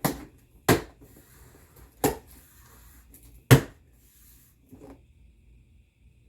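Cardboard box of a new box fan being opened and handled: four sharp knocks and rips spread over the first four seconds, then a fainter one.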